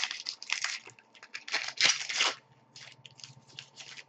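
A hockey card pack wrapper being torn open and crinkled. The longest, loudest tear comes about two seconds in, followed by a run of smaller crinkles.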